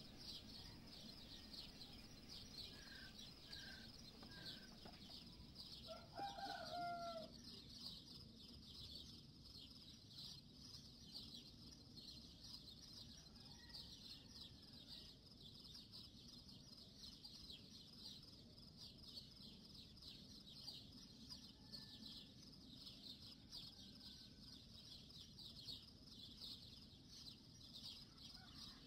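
A rooster crows once, faintly, about six seconds in, a falling call of a second or so. Under it runs a steady high chirping, with a few short chirps early on.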